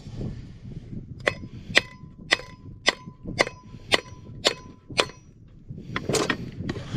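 Ball-peen hammer tapping on an AC compressor's clutch hub to loosen it from the shaft: about eight sharp, ringing metal strikes, roughly two a second, then a duller clatter near the end.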